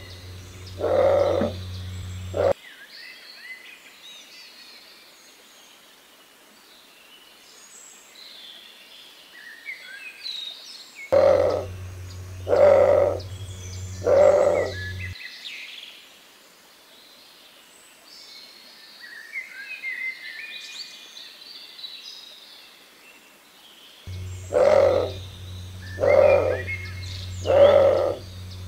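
Bare-throated tiger-heron's deep roaring call: bouts of three low, hoarse grunts, repeating about every twelve seconds. Small birds chirp faintly between the bouts.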